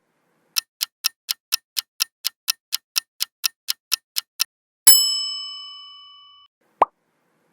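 Quiz countdown-timer sound effect: a clock ticks about four times a second for about four seconds, then a single bell ding rings out and fades. A short pop comes near the end.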